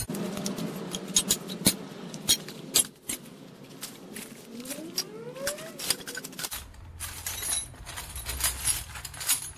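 Metal hand tools (wrenches, screwdrivers and pliers) clinking and clattering against each other as they are handled and packed into a cloth tool bag, played back sped up. There is a brief rising squeak around the middle.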